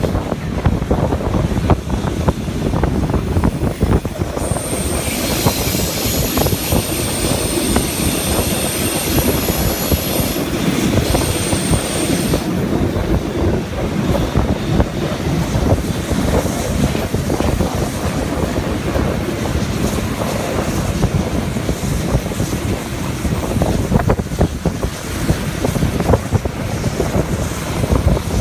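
Steam-hauled museum train running, heard from an open carriage window: steady rumble of wheels on rails with wind buffeting the microphone. A high-pitched wheel squeal joins about four seconds in and stops around twelve seconds in, as the wheels grind through the curve.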